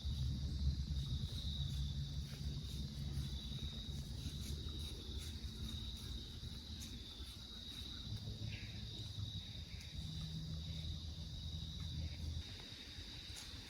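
Crickets trilling steadily in the woods, over a louder low hum that stops about a second before the end, with a few faint ticks.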